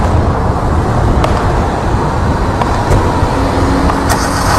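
Road traffic noise picked up outdoors, a steady rumble of passing vehicles with a few sharp clicks. A faint steady hum joins near the end.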